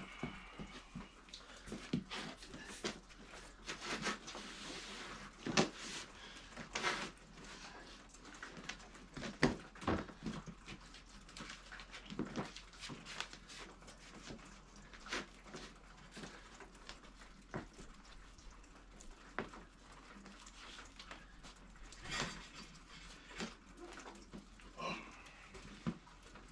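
Scattered light knocks, scrapes and footsteps at irregular intervals, from a person walking, kneeling and handling an old van wall panel laid on a birch plywood sheet while tracing around it.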